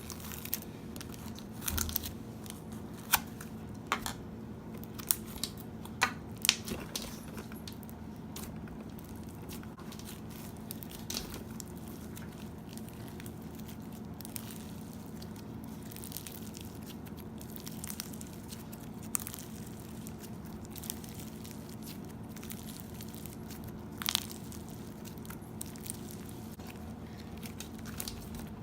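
Slime being squeezed, stretched and poked by hand, giving sharp clicks and pops, most of them in the first seven seconds, with another loud one about 24 seconds in, over a steady low hum.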